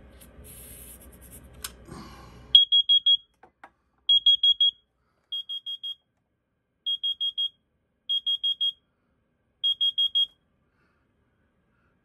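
A short hiss of canned carbon monoxide test gas sprayed into a carbon monoxide detector. The detector then goes into alarm with high-pitched beeps in groups of four, six groups in all, stopping about ten seconds in. The detector is responding to the test gas.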